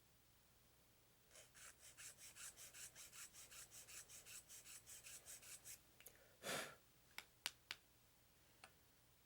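Small hobby file rasping back and forth on a plastic model kit part, about four strokes a second for some four seconds, smoothing the spot where the part was nipped from its runner. Then a short louder whoosh and a few light clicks of plastic.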